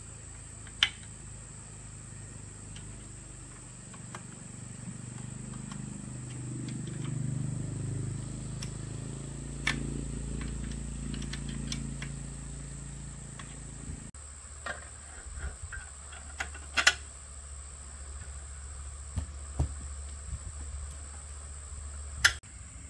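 Insects chirping steadily, with a low hum and a few sharp clicks or knocks. The low sound changes suddenly about two-thirds of the way through.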